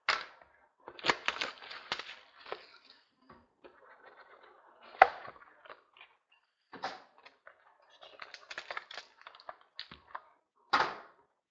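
Trading card packs and cards being handled: crinkling wrappers and plastic with irregular sharp clicks and snaps, the loudest snap about five seconds in and another near the end.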